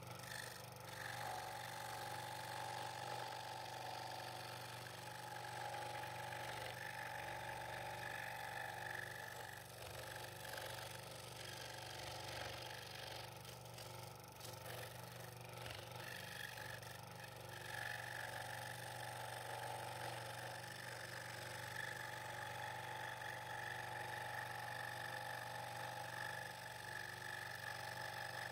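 Scroll saw running steadily, its reciprocating blade cutting through double-stacked wood as the piece is fed around tight curves.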